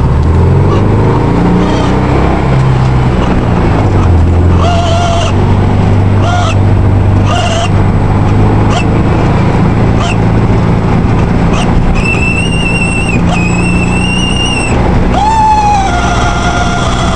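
VW Beetle's speedometer screeching while the car is driven: short high-pitched squeals every second or so, then a long high screech about twelve seconds in, and a lower squeal that slides down slightly and holds near the end. Under it runs the steady drone of the Beetle's air-cooled engine.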